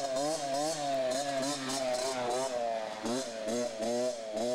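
Small child's dirt bike engine buzzing while being ridden, its pitch wavering up and down constantly, with several quick rising revs in the last second and a half.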